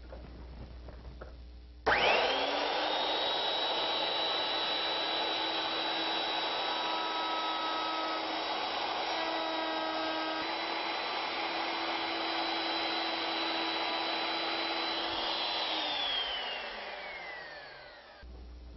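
Router with a 1/2 inch straight cutter on an ornamental mill, switched on about two seconds in: its whine rises quickly to a steady high pitch and holds while it cuts the inside track of a template in wood. Near the end it is switched off and its whine falls as it winds down.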